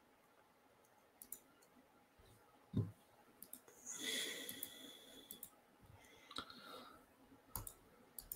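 Faint scattered computer mouse clicks, with a single low thump about three seconds in and a soft rustle close to the headset microphone around the middle.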